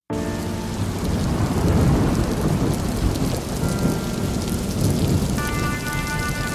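Steady heavy rain with a low rumble of thunder that swells about two seconds in. Faint held musical notes sound under the rain near the end.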